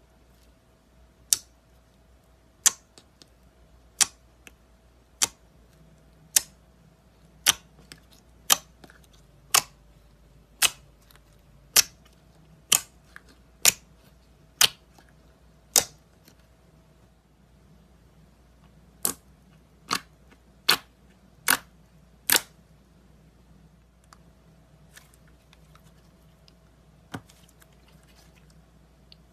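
Clear blue slime pressed and poked by fingers, giving sharp popping clicks about once a second, then a pause and four more pops in quicker succession, with one faint pop near the end.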